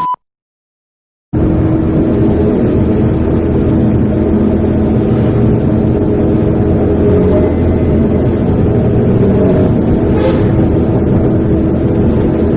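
Intercity bus engine running steadily through a loud aftermarket 'ngorok' (growling) exhaust. It cuts in abruptly about a second in, after a short gap of silence.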